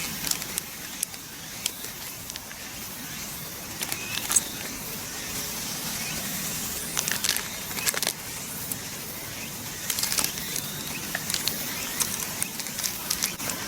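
Protective plastic film being peeled off a steel grill plate, crackling and rustling with irregular sharp crackles.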